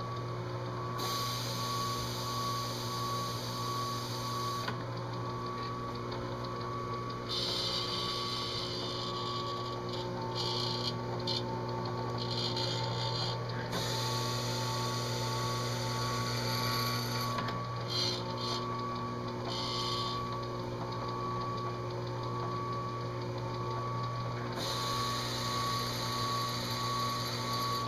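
Drill press's DC motor running steadily, spinning an abrasive plug that engine-turns a metal dash insert. A higher grinding hiss comes and goes several times over the steady hum as the plug is pressed to the metal and lifted.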